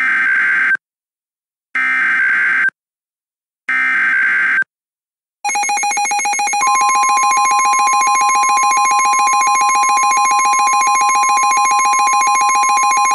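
Emergency Alert System SAME header: three screeching digital data bursts of about a second each, a second apart. About five seconds in, a steady buzzing electronic attention tone starts, and a second, higher steady tone joins it a second later and holds.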